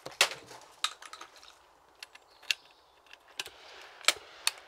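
Side-by-side hammer shotgun being reloaded just after firing: about half a dozen sharp metallic clicks and clacks as the opened breech is handled, cartridges are changed and the action is closed.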